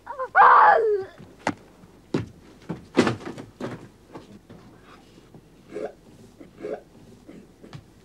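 A short, loud cry near the start, its pitch rising and then falling. Several sharp knocks follow, the loudest about three seconds in, and then a couple of fainter short cries.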